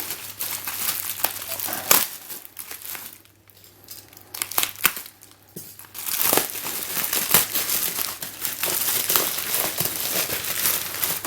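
Packaging crinkling and rustling as it is handled and unwrapped: a run of quick crackles that eases off for a few seconds in the middle, then picks up again and keeps going.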